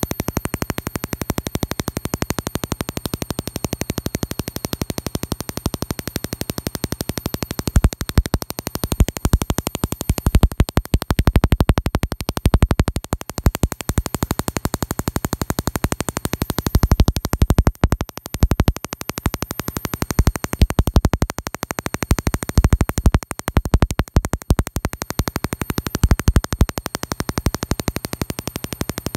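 Mini Tesla coil running, its sparks crackling and buzzing onto a metal hobby-knife blade held near the ball top terminal. The crackle swells and turns more ragged in several stretches, as the blade comes closer.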